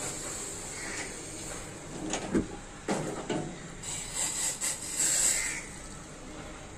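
A small steel saucepan clanking and scraping against a gas stove's grate as it is handled, followed by boiled tea being poured through a metal tea strainer into a ceramic mug.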